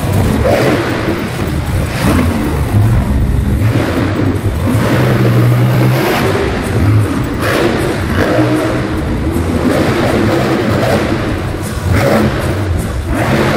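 Monster truck engines revving and running, the engine note rising and falling.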